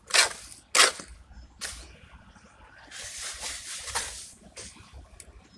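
Wet mortar being scooped by a gloved hand from a bucket and packed into a cloth piping bag. There are two sharp wet scrapes in the first second and another a little later, then a longer rustling scrape as the bag is filled.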